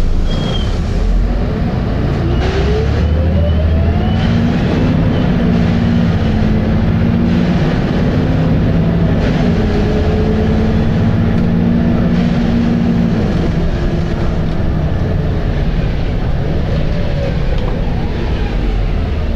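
Volvo B7RLE single-decker bus under way: a whine rising in pitch as it accelerates in the first few seconds, then its diesel engine working hard at a steady note, with further rising and falling whines near the end.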